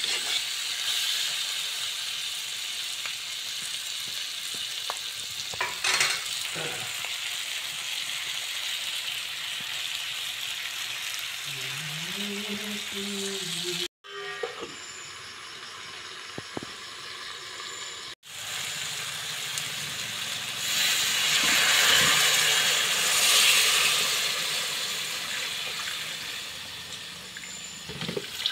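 Smoked beef pieces with onions and tomatoes sizzling in hot oil in a steel wok, stirred with a metal spatula that scrapes the pan now and then. The sizzling drops for a few seconds in the middle, then swells louder again.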